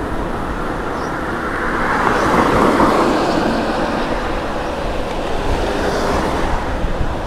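Rushing wind and road noise from riding an e-mountain bike along a town street, swelling loudest about two to three seconds in.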